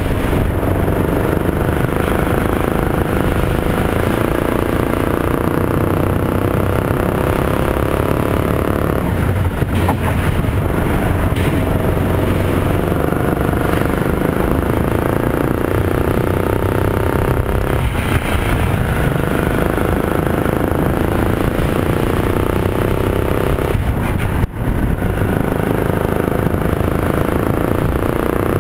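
Rental kart's Yamaha MZ200 single-cylinder four-stroke engine running hard on the lap, its pitch rising and falling as it accelerates out of corners and eases off into them. There are a few brief dips in the engine note.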